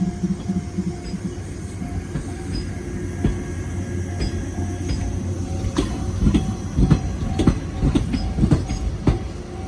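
A 415 series electric train rolls slowly past, its wheels clacking over rail joints and points from about six seconds in. A level-crossing warning bell rings in a steady repeating pattern throughout.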